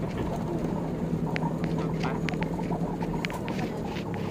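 Vehicle riding along a rough dirt track, heard from inside the cabin: a steady low engine and road hum with frequent short, irregular rattles and clicks.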